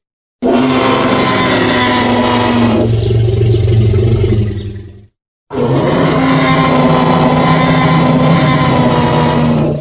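Two long, rough Tyrannosaurus rex roar sound effects, each about four and a half seconds, separated by a brief silence; the first fades out, the second cuts off at the end.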